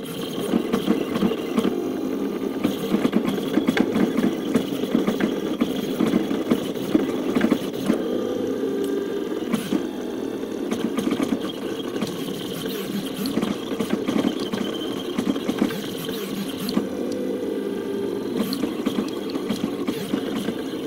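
Stepper motors of a cable-driven delta 3D printer driving their cable winches during a print: a busy, continuous whirring whose pitch keeps shifting with the moves, with many small clicks through it.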